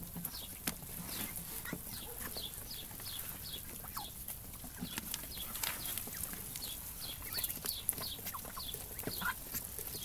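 A flock of young Muscovy ducks peeping with short, high, falling whistles, several a second, while their bills click and peck at wet mash in the feed tray.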